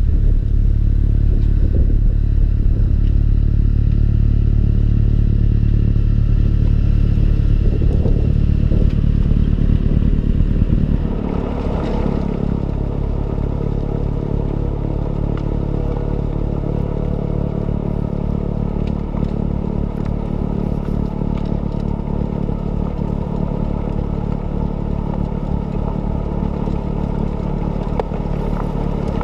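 John Deere 6110R tractor's diesel engine running steadily. About eleven seconds in, the sound shifts: the low engine note drops a little and a rougher, noisier clatter comes up beside it.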